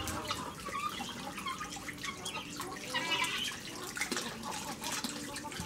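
Water running from a tap and splashing into a sink as a cleaned fish is rinsed by hand under the stream.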